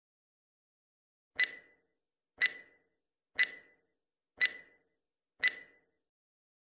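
Countdown timer sound effect: five short, bright ticks a second apart, each with a brief ring, starting a little over a second in.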